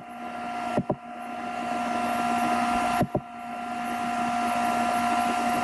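Steady electrical hum and hiss from the recording setup, with several tones held level. A few short mouse clicks about a second in and again about three seconds in; after each one the hum dips and slowly swells back.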